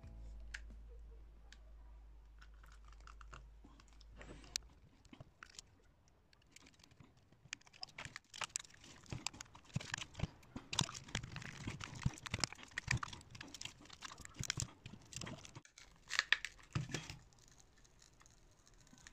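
Plastic shell of a DJI Mavic drone battery being pried and pulled apart by hand: irregular clicks, crackles and scraping of plastic, with some tearing and crinkling. Dense from about eight seconds in. A faint low hum stops about four seconds in.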